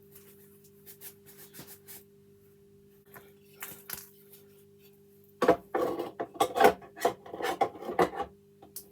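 Light handling clicks, then from about halfway a few seconds of rapid rasping strokes as a brush scrubs rust off the old metal parts of a garden gate lock. A faint steady hum runs underneath.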